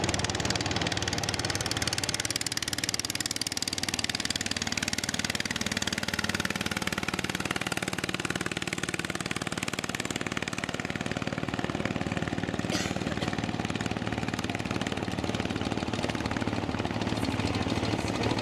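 Motorboat engine idling steadily with a fast, even run of firing pulses.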